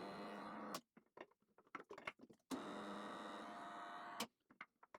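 Jones and Shipman 540P surface grinder's electric head-elevation drive running in two short spells, raising the grinding head. It gives a faint steady hum that ends in a click each time, with a few light clicks in between.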